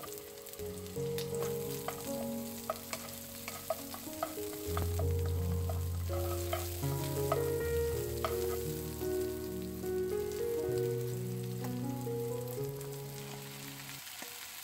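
Sliced onions sizzling as they stir-fry in oil in a nonstick wok, with a wooden spatula clicking and scraping against the pan, most often in the first half. Background music with held notes plays throughout.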